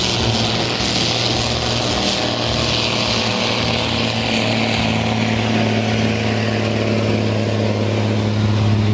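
DAF 95 truck's diesel engine running flat out under heavy load as it drags a weighted pulling sled over dirt: a loud, steady drone that holds its pitch.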